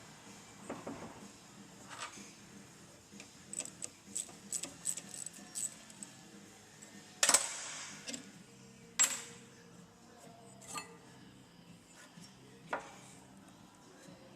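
Metal hand tools and parts clinking and clanking during work on a fuel filter assembly: a run of light irregular clicks, then two sharp ringing metal clanks about a second and a half apart, and a few lighter knocks.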